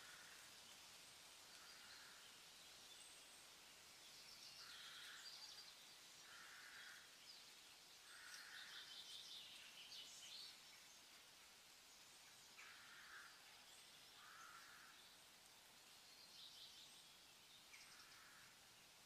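Faint outdoor nature ambience: a steady hiss with short chirping calls repeating every second or two, some as quick high trills.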